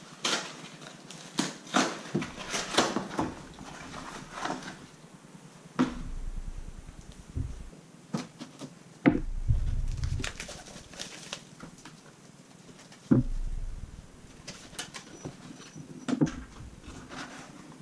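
Cardboard and paper packaging being torn and cut open with a knife: irregular rustling, tearing and scraping, with a few dull thumps of the box against the table, the loudest about nine and thirteen seconds in.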